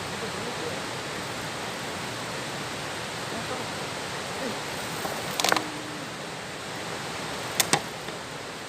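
Steady rush of flowing river water, with a quick cluster of sharp clicks about five and a half seconds in and two more sharp clicks near the end.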